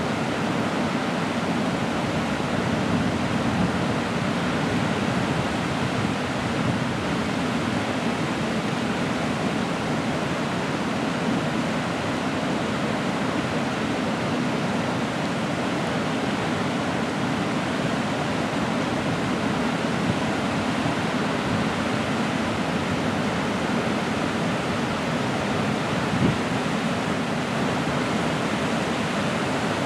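Creek in high spring flow, its water rushing steadily over rocks with an unbroken hiss.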